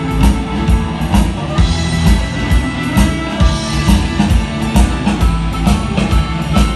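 Live blues-rock band playing: electric guitar over a steady drum-kit beat, about two beats a second.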